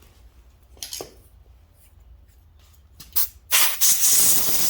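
A spray hissing loudly for about a second and a half near the end, after a short burst and a few light clicks.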